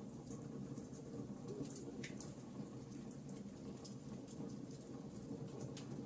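Wood fire crackling in a fireplace: irregular sharp pops and snaps over a steady low sound of the burning, with one stronger snap about two seconds in.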